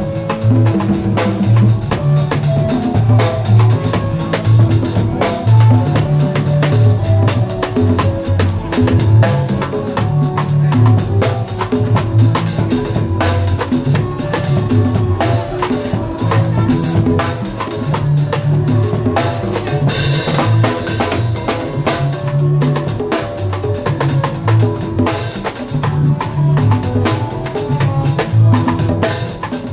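A live band playing, driven by a drum kit with dense snare, bass-drum and cymbal strokes over a low bass line moving between notes and higher melodic notes. A cymbal crash rings out about twenty seconds in.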